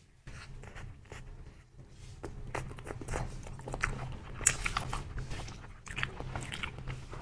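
Mouth sounds of eating soft coconut jelly: biting into it and chewing, a run of short wet smacks and clicks, loudest about four and a half seconds in.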